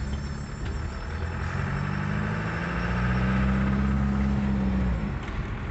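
Naturally aspirated 2.5-litre Mitsubishi diesel engine in a converted 1955 Oldsmobile, heard from inside the cabin while driving. The revs climb over the first few seconds, hold a little louder, then drop about five seconds in.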